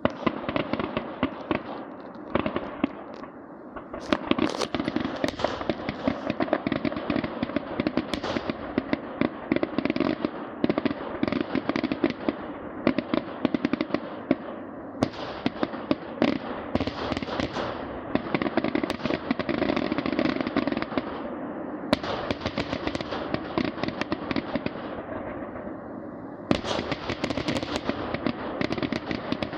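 Fireworks going off in a dense, nearly continuous barrage of rapid pops and crackles. The barrage comes in waves, easing off briefly a few times before picking up again.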